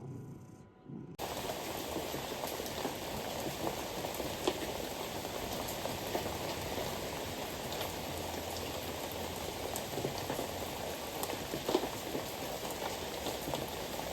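Steady rain falling, a dense patter of many small drops that starts suddenly about a second in.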